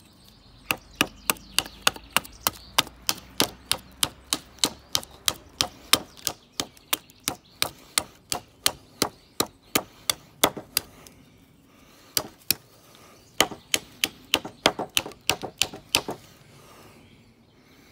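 A bushcraft knife with a 1075 carbon-steel blade chopping into a wooden round: a quick run of sharp, evenly spaced strikes, about three a second, with a short pause in the second half, stopping shortly before the end.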